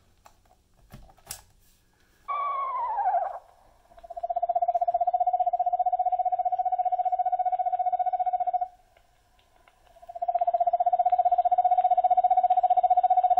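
Recorded screech owl calls played from a sound plate by a Microsonics 300 microphonograph: a short whinny sliding down in pitch, then two long, quavering trills held on one pitch, each about four to five seconds. A couple of faint clicks come first.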